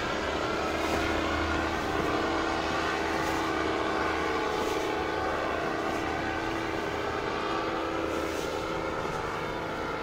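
Wind rushing over an action camera's microphone by the sea, with a low rumble, under a steady distant engine drone that holds a few even tones.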